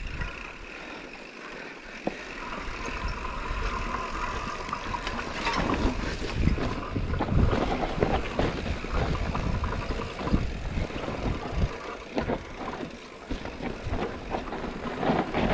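Mountain bike riding over a rough trail: wind on the microphone with a dense run of knocks and rattles from the bike going over rocks and roots, busier from about five seconds in.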